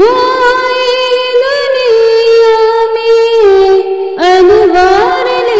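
A high solo voice singing a naat, holding long wordless notes: one long held phrase that steps down in pitch, a short break a little past the middle, then a new phrase that wavers and climbs.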